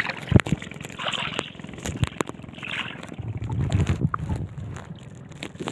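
Seawater sloshing and splashing around a camera held at the surface, with a few sharp knocks. About three seconds in, the camera goes underwater and the sound turns to a low, muffled rumble.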